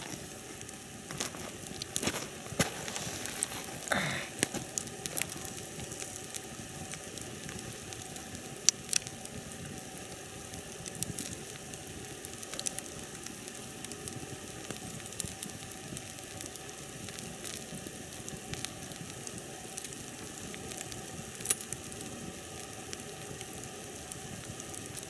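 Wood campfire burning: a steady hiss with scattered sharp crackles and pops, the loudest about nine seconds in and again near the end.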